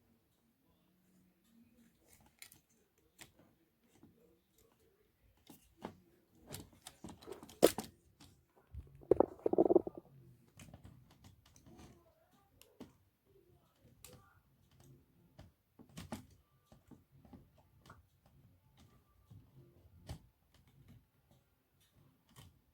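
Scattered clicks and light knocks of ring light tripod parts being handled and screwed together. There is a louder sharp click about eight seconds in, and a short louder burst of handling noise just after it.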